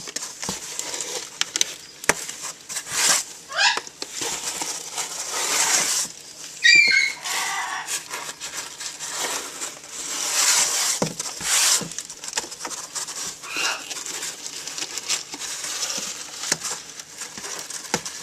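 A cardboard shipping box being shaken, tapped and scraped by hand to knock live dubia roaches out: steady rustling and scraping on cardboard with sharp knocks. A pet bird gives a short falling call about seven seconds in.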